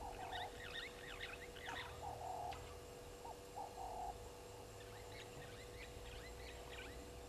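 A frog croaking in short low calls a few times in the first four seconds, with small birds chirping in quick high notes in two spells. A faint steady hum runs underneath.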